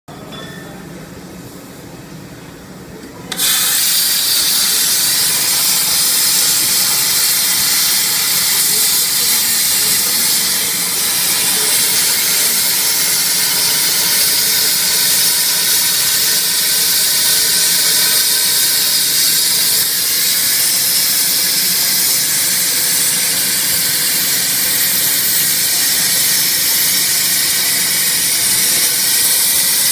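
Plasma cutting torch on a CNC pipe profile cutter firing its arc and cutting through a rotating steel pipe: a loud, steady hiss that starts suddenly a few seconds in, after a quieter low machine hum.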